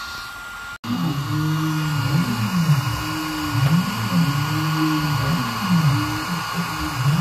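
Stepper motors of a Zealandia Proteus P3 CNC gantry whining as the diode laser head traces a circle, the pitch of the motors rising and falling about once a second as the axes speed up and slow down, over a steady hiss. The motor sound starts abruptly about a second in.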